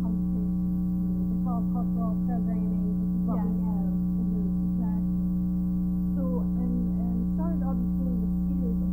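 A loud, steady electrical hum with a stack of fixed overtones nearly buries a woman's faint, low-level speech.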